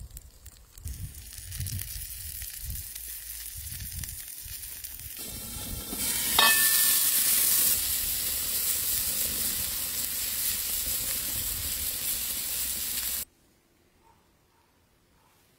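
Pizza sizzling in a dark metal pan as it cooks: a steady hiss that grows louder about six seconds in and cuts off suddenly a couple of seconds before the end.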